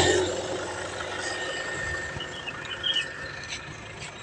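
A car engine idling quietly and steadily, with a motor scooter that has just passed fading away at the start.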